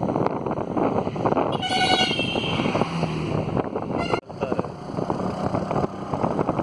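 A vehicle horn honks once, briefly, about a second and a half in, over steady road noise and wind buffeting the microphone of a moving vehicle.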